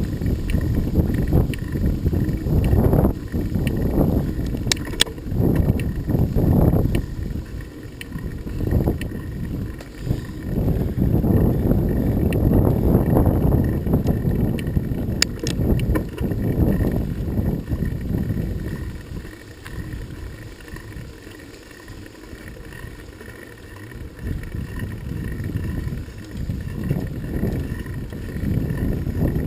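Wind buffeting the microphone of a rider on a moving bicycle, a gusting rumble that eases off about two-thirds of the way through, with a couple of sharp clicks.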